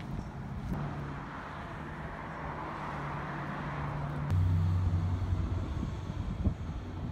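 A motor vehicle engine idling, a steady hum that turns deeper and louder about four seconds in.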